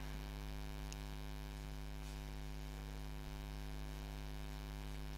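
Steady electrical mains hum: a low, even buzzing drone with many evenly spaced overtones.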